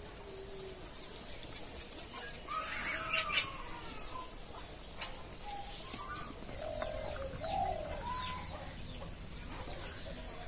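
Doves cooing in short low phrases in the second half, with other birds chirping and calling.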